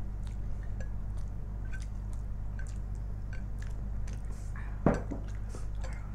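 Quiet eating sounds: chewing and light clicks of chopsticks on ceramic plates, with a louder knock about five seconds in as a drinking glass is set down, over a steady low hum.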